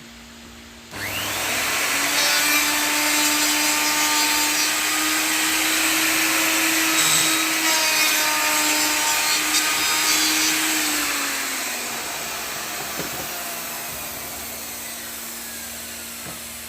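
Electric wood router switched on, spinning up with a rising whine about a second in, then running steadily with small changes in pitch as it works. Near the end it is switched off and winds down with a falling pitch.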